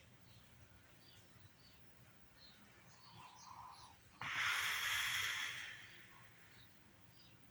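A sleeping woman snoring: one airy snore starts suddenly about four seconds in and fades away over about two seconds, with only faint breathing before it.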